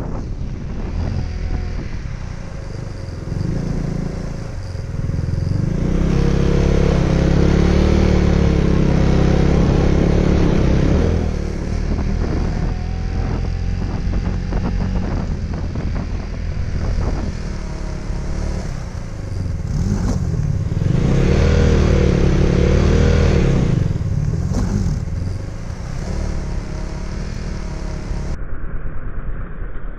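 Motorcycle engine running under way, its revs rising and falling, with two harder pulls of several seconds each, one about a fifth of the way in and one about two-thirds of the way in.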